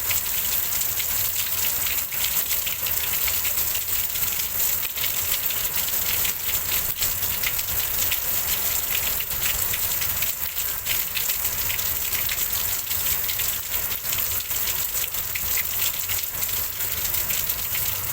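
Heavy rain falling steadily, a dense rush of countless close drop hits, with a low rumble of wind beneath it.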